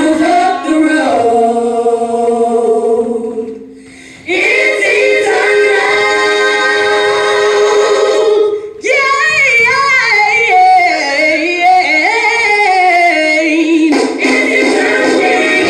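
Recorded gospel song with female voices singing long held notes. It drops away briefly about four seconds in, then comes back with ornamented runs from about nine seconds.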